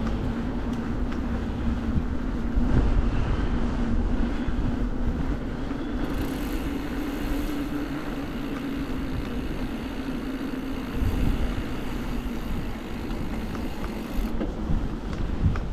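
Wind rushing over the microphone and road noise while riding along a street, with a steady low hum from the machine being ridden that rises slightly in pitch about six seconds in.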